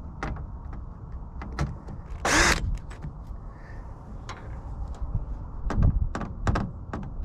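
Scattered clicks and knocks of hand-tool work on a TV's plastic and metal parts as it is being taken apart, with a louder brief scrape about two seconds in.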